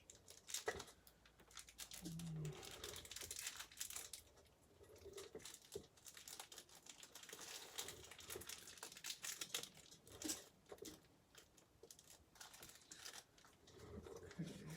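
Faint crinkling and rustling of plastic packaging being handled while small screws are sorted out of a computer case's parts box.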